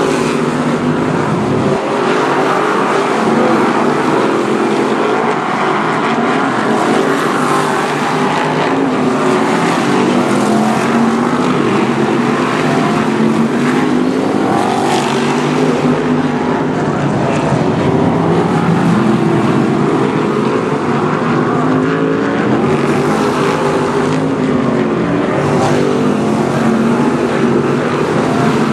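BriSCA F1 stock cars' V8 engines racing together at full throttle, several engine notes overlapping and rising and falling without let-up.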